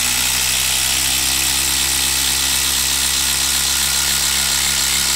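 Milwaukee M12 Fuel brushless impact driver hammering a long screw into a wooden stump. It gives a loud, steady buzz of rapid impacts that cuts off suddenly near the end as the screw is driven home.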